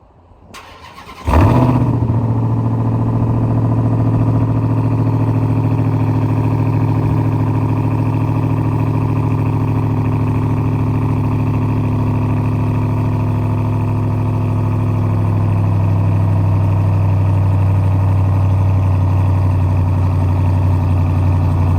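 Ram TRX's supercharged 6.2-litre Hellcat V8 starting about a second in with a brief rev as it catches, then idling steadily.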